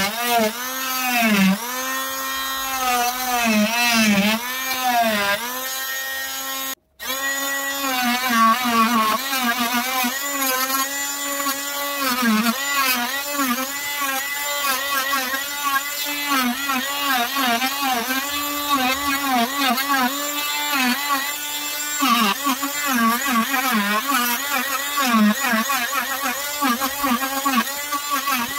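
Corded Wesco oscillating multi-tool running as its blade cuts into a block of wood, its whine dipping in pitch again and again as the blade bites and bogs, then recovering. The sound drops out for an instant about seven seconds in.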